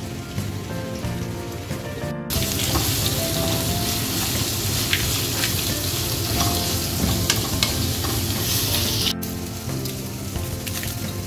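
Background music for about two seconds, then sliced onions sizzling loudly in hot oil in a nonstick wok, with the clicks and scrapes of a spatula stirring them. The sizzling stops suddenly about nine seconds in and the music returns.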